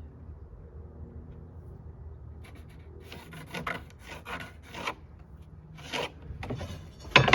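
Pencil marking a line on a plywood panel: several short scratchy strokes, with a louder scrape near the end.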